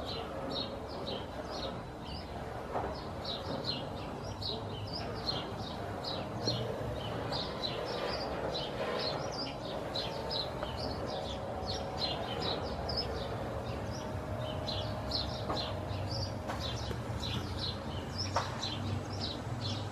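Small birds chirping, many short high chirps a second, over a steady low background rumble.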